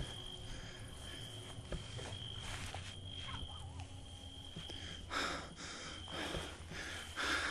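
Footsteps, about one a second in the second half, over a low steady outdoor rumble. A thin high steady tone comes and goes.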